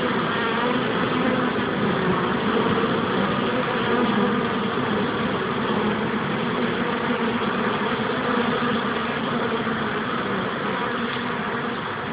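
Many honeybees buzzing as they fly in and land at the hive entrance: a loud, steady, slightly wavering hum.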